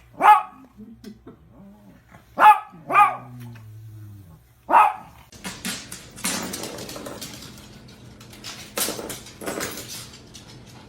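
A dog barks four times, with a low, drawn-out growl between the later barks. It is followed by several seconds of rough, noisy rustling.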